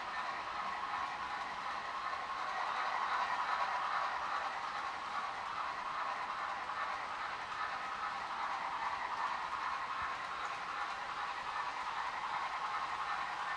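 Model railroad steam locomotive pulling a freight train of boxcars along the track, giving a steady running sound with no breaks.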